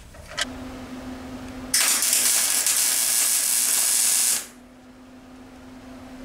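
Wire-feed welder arc crackling and hissing for about two and a half seconds, then cutting off suddenly, as a broken weld on a moped exhaust is re-welded at a higher heat setting for deeper penetration. A click comes before it, with a steady hum before and after the arc.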